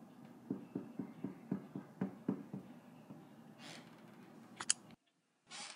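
Quick, soft footsteps on carpeted stairs, about four a second, followed by a brief rustle and two sharp clicks.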